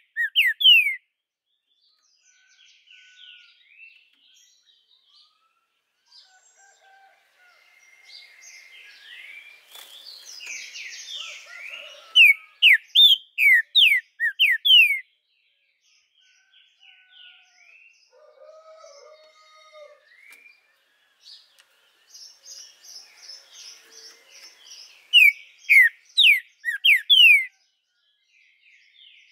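Green-winged saltator (trinca-ferro) singing: three loud phrases of quick falling whistled notes, one at the start, one around the middle and one near the end, with softer chirps and warbles in between.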